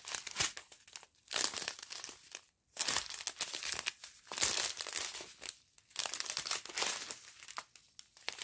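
Small clear plastic bags of round diamond-painting drills crinkling as they are handled and turned over one after another, in a string of bursts with brief pauses.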